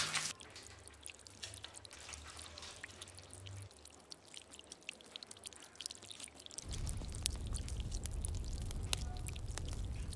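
A frying sizzle cuts off just after the start. Then come light clicks and ticks of a steel spoon tipping spice powders into a stainless steel bowl. A low hum comes in about two-thirds of the way through, and the ticks grow denser.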